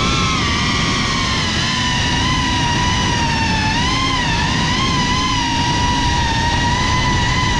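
GEPRC CineLog35 cinewhoop FPV drone in flight: its motors and ducted propellers whine, the pitch wavering up and down with the throttle, over a steady rushing noise.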